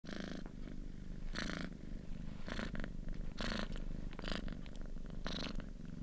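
Domestic cat purring close up: a steady low rumble with a louder breathy swell about once a second.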